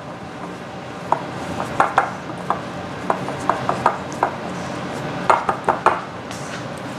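Hands rolling chicken pieces in flour in a glass mixing bowl: scattered light clinks against the glass at an uneven pace, with a quick cluster of them near the end.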